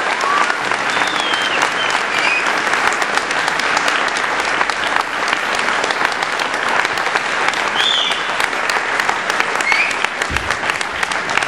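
Audience applauding steadily with dense clapping, and a few brief high whoops or whistles from the crowd over it.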